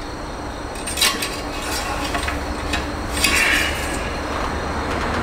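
A few light knocks and clinks as a plastic oil bottle and the oil-filler funnel are handled while refilling engine oil, with a short hiss a little after three seconds and a steady low hum underneath.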